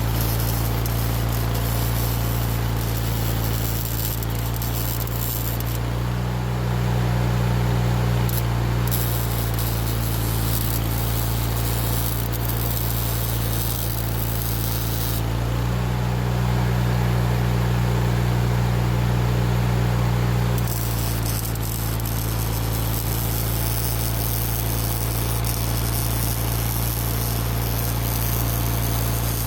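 Arc welding: a steady crackling, sizzling arc over the welding machine's low, steady hum. Twice, about six seconds in and again about fifteen seconds in, the hum grows louder for a few seconds while the hiss thins.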